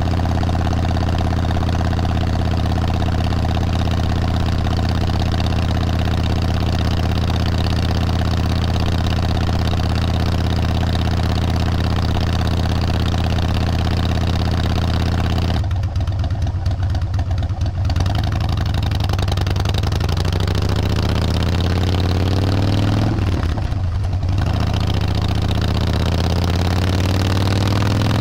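Vehicle engine running at a steady speed. About sixteen seconds in it eases off for a moment, then picks up again, its pitch rising and falling as it changes speed.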